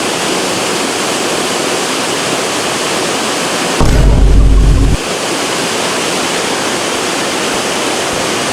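Steady rush of flowing water. About four seconds in, a gust of wind buffets the microphone for about a second with a deep rumble.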